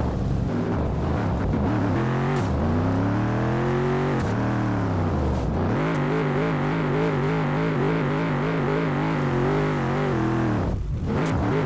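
Mercedes G-Wagon's V8 engine running under load: it revs up, falls back, then holds a steady, slightly wavering note.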